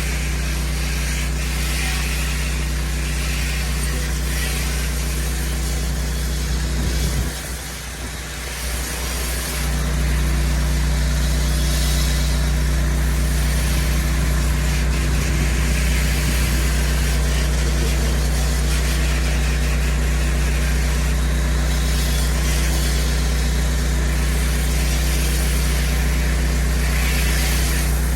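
Pressure washer's engine running steadily, with water hissing from the spray wand as a fence is rinsed at good pressure. The engine hum breaks briefly for about two seconds a quarter of the way in, then carries on.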